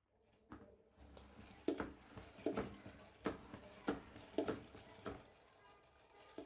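A series of light household knocks and clatters, about one every two-thirds of a second, over a faint steady hiss.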